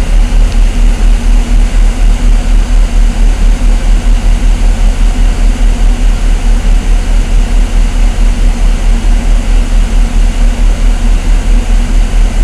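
Military vehicle's engine idling, heard from inside the cab: a loud, steady low throb pulsing about four times a second.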